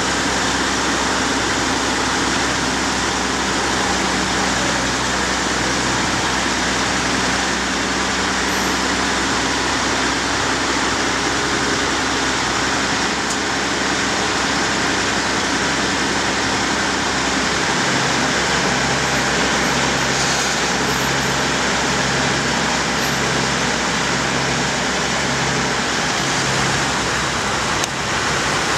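Heavy-haulage prime mover running as it slowly pulls a low-loader carrying a large excavator, over a steady wash of road and traffic noise. In the second half a low hum pulses on and off at an even rate.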